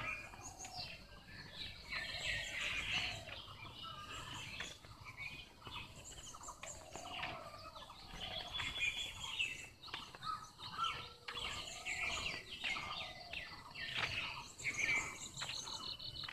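Several birds chirping and calling in short, repeated high trills, with some lower calls, over steady low background noise.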